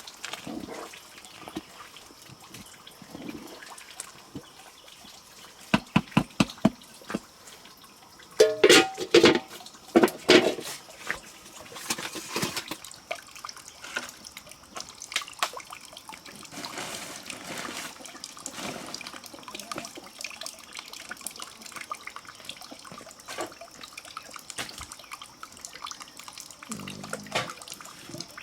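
Corn being ground in an old hand-turned mill: a wet, rough grinding sound, with a quick run of about six knocks and then a louder cluster of knocks and clatter about a third of the way in.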